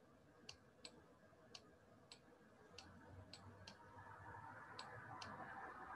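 Faint, sharp clicks, about nine of them at uneven intervals, from the pen input or mouse used to hand-write on a digital whiteboard. A faint low background noise grows louder toward the end.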